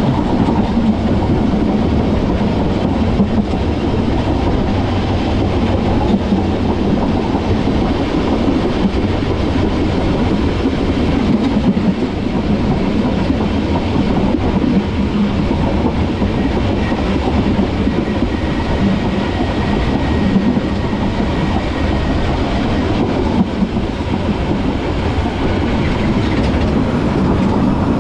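Vintage Manx Electric Railway electric tramcar running along its narrow-gauge track, heard from on board: a steady rumble of wheels on rails with occasional knocks, and a faint high whine that comes and goes in the middle.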